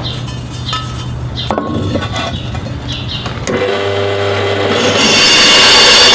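Bench drill press motor running while a motorcycle brake disc is shifted under a 5 mm drill bit, with a few light metallic clinks. About three and a half seconds in the bit starts cutting into the disc again, and from about five seconds the cutting grows loud and high-pitched.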